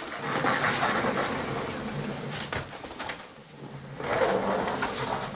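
Boots crunching and shuffling on packed snow, with scraping as men shift a heavy load, and a sharp knock about two and a half seconds in.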